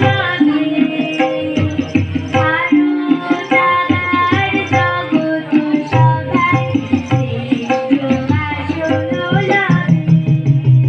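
Bengali song with tabla accompaniment: a melody line that slides in pitch over steady tabla strokes.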